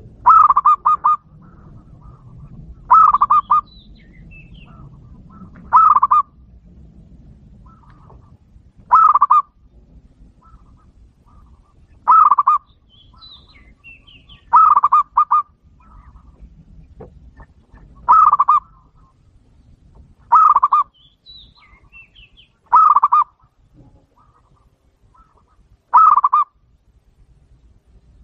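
Zebra dove (local perkutut) cooing. A quick cluster of rolling coo notes comes about every three seconds, ten times. It is the clear call used as a lure to draw wild zebra doves to a trap.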